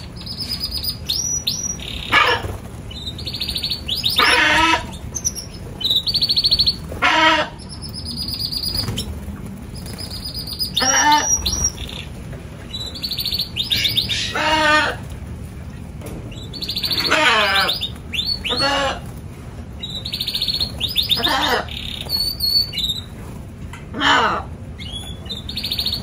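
Canaries singing: rapid high trills run almost without pause, and every two to four seconds a louder, lower call cuts in.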